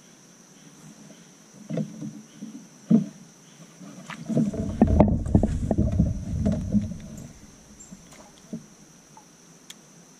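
Knocks and low thumps of gear and the angler's movements against a fishing kayak's hull: two sharp knocks, then a dense run of thumping and clatter a few seconds in. A steady high insect drone runs behind.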